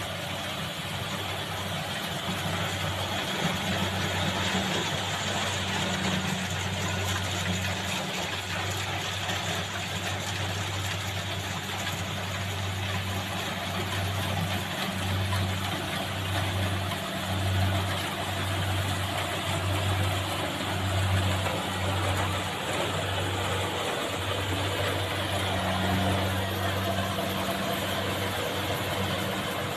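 Engine of a rice harvesting machine running steadily in the field, with a low hum that swells and eases in strength as it works.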